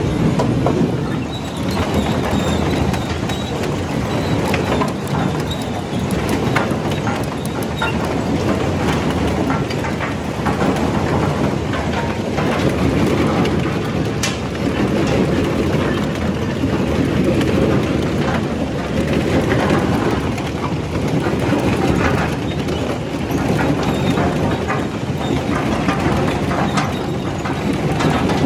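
Potato sorting machinery running: potatoes tumbling and clattering over a roller sorting table and sieve conveyor, with a steady mechanical rattle and rumble.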